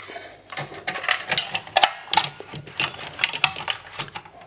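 Rapid, irregular clicks and knocks of a plasma TV's power supply board and metal parts being handled and fitted into the set's chassis.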